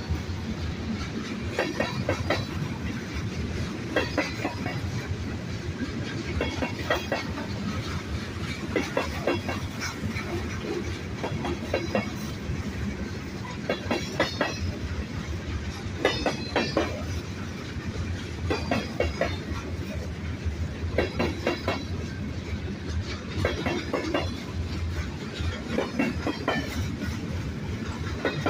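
Mixed freight train cars rolling past, their wheels clacking over the rail joints in groups of clicks about every two seconds over a steady low rumble.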